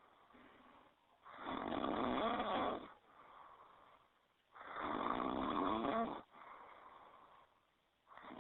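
Polar bear snoring: two loud snores about three seconds apart, each lasting about a second and a half, with quieter breaths between them, and a third snore starting near the end.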